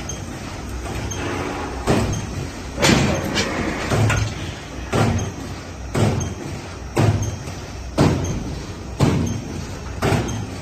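Industrial stone wool felt sewing machine running: a steady mechanical hum with a sharp thump of the stitching stroke about once a second, starting about two seconds in.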